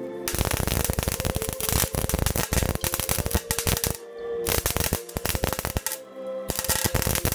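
MIG welder arc crackling on steel tubing in runs of a few seconds, with short breaks about four and six seconds in where the arc is stopped. Music plays quietly underneath.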